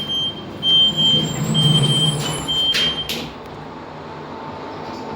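Lift car interior: a high-pitched beep sounds on and off for about three seconds, with rumbling, then two sharp knocks as the doors shut. A steady hum with a faint whine follows as the lift sets off downward.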